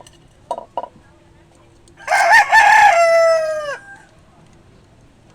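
A rooster crowing once: a loud call of nearly two seconds that falls in pitch as it ends.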